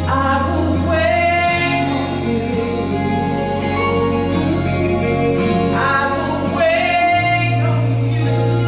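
A woman singing a gospel solo into a handheld microphone over instrumental accompaniment with sustained bass notes.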